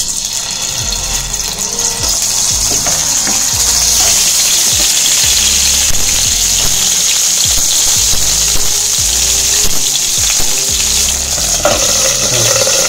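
Frozen, ready-to-cook chicken lollipops sizzling as they shallow-fry in hot oil in a pan. It is a loud, steady crackling hiss that starts suddenly as they go into the oil.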